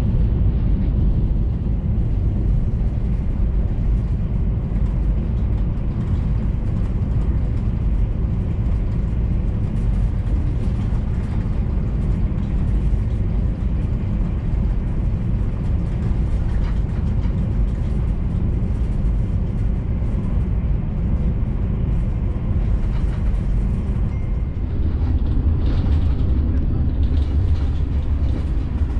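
Steady low rumble and running noise inside the coach of an Italo AGV high-speed train travelling at about 250 km/h. The deepest part of the rumble grows louder over the last few seconds.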